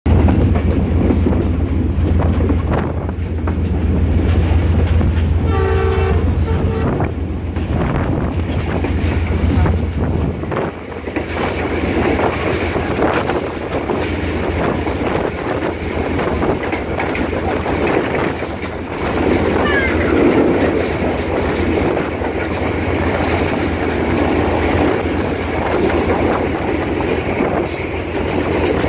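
Diesel locomotive running at speed, heard from its open footplate step: a steady low engine drone under the clatter of wheels over the rails and rushing air. A short horn blast sounds about six seconds in, and the low drone eases off about ten seconds in.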